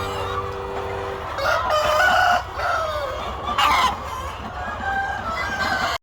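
Chickens clucking, with a rooster crowing among them.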